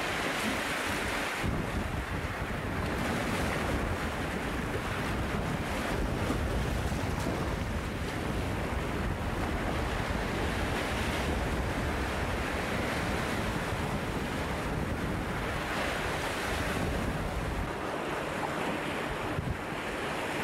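Surf washing and foaming over rocks along a rocky shore, a continuous wash that swells near the start and again about two-thirds through. Wind buffets the microphone with a low rumble.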